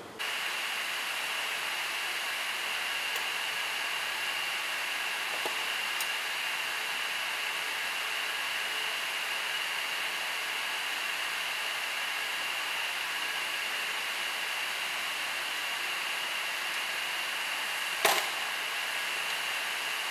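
Butt fusion welding machine running with a steady whirring hiss and a high steady whine, with one sharp click near the end.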